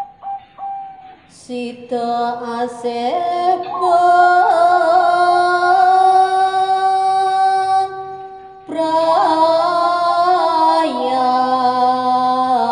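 Javanese-language wedding song: a woman singing long held notes with vibrato over instrumental backing. The music drops away briefly about eight seconds in, then resumes.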